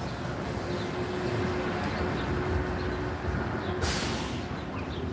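City street traffic: a steady rumble of passing vehicles, with a faint held tone and a short, sharp hiss about four seconds in.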